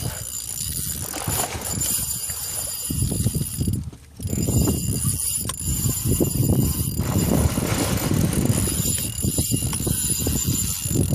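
A fishing reel being cranked in rapid ticking runs as a shark is fought and reeled toward the boat, over a steady low rumble. The rumble briefly drops away about four seconds in.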